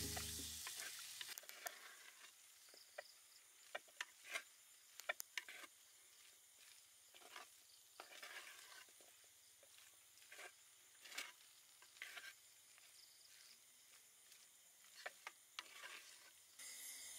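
Wooden spoon stirring curry in a clay pot: scattered scrapes and taps of the spoon against the pot over a faint sizzle. Background music fades out in the first second and comes back near the end.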